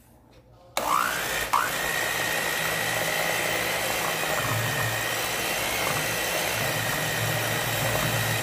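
Electric stand mixer switched on about a second in, its motor whining up to speed twice and then running steadily as the beaters churn thick, chilled chocolate pudding.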